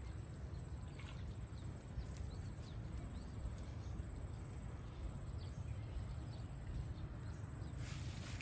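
Outdoor ambience: a steady low rumble with faint, scattered high chirps from small birds or insects, and a brief rustling hiss near the end.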